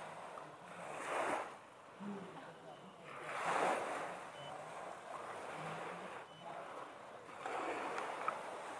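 Small waves washing onto a sandy beach, swelling and fading every two to three seconds, with faint voices of people in the background.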